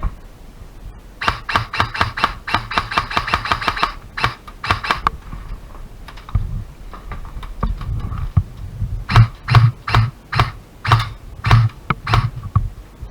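Airsoft gun firing a rapid string of shots, about seven a second, then a few scattered shots, with more sharp cracks and low thuds near the end.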